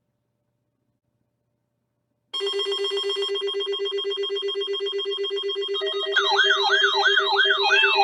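Silence, then about two seconds in a loud electronic alert tone starts: a buzzy, rapidly pulsing ringing tone. About six seconds in it is joined by a fast up-and-down siren-like wail, a couple of sweeps a second.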